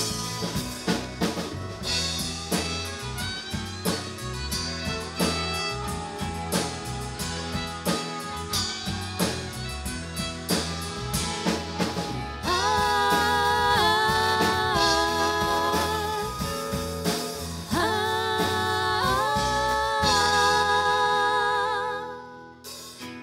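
Live country band playing an instrumental stretch of the song: drum kit keeping a steady beat under bass and guitars, with a held, gliding melody line coming in about halfway through. The music drops away briefly near the end.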